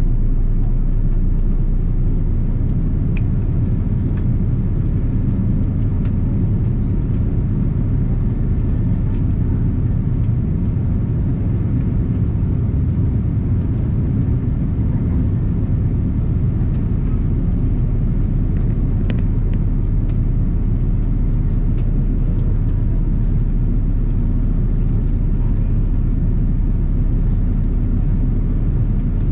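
Steady airliner cabin noise in cruise, heard from a window seat: an even, low rumble of airflow over the fuselage and the wing-mounted Rolls-Royce turbofan.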